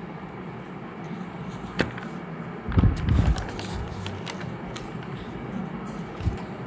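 Scissors snipping around a small paper cut-out and the paper being handled, heard as a few short clicks, with a cluster of dull thumps about three seconds in.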